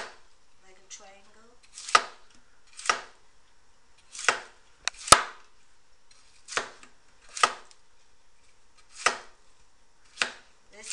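Chinese cleaver chopping peeled Chinese yam on a wooden cutting board: about ten separate sharp knocks of the blade through the yam onto the board, one every second or so at an unhurried, uneven pace.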